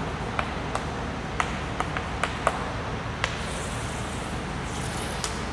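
Chalk writing on a chalkboard: a series of short sharp taps and clicks as letters are written, then a faint high scratch near the end as a long line is drawn, over a steady background noise.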